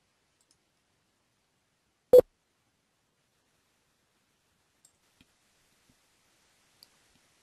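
Dead silence broken once, about two seconds in, by a single short, sharp click, with a few faint ticks later on.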